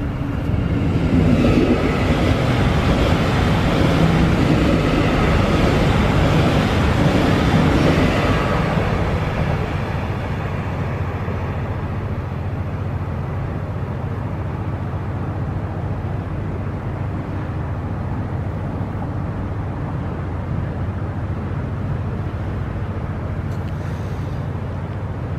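A passing vehicle swells into a loud rushing rumble over the first second or so and fades after about nine seconds. After that a steady low rumble of wind on the microphone remains.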